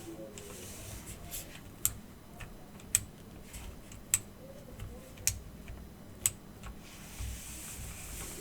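Keys of an Aukey mechanical keyboard pressed one at a time, making five sharp clicks about a second apart with fainter clicks between.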